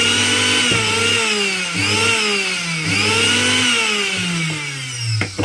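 Mixer grinder's universal motor running bare on a test connection after its seized bush was replaced, spinning smoothly with a high whine. Its speed swells and sags about once a second, then it winds down near the end and stops with a click.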